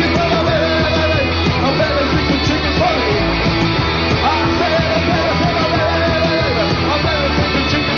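Live garage-punk rock band playing loudly, with a wavering sung or guitar line over a steady driving beat.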